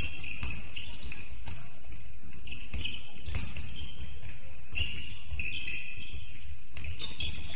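Basketball game play in a gym: a ball bouncing on the court with repeated short sneaker squeaks and faint voices in the hall's echo.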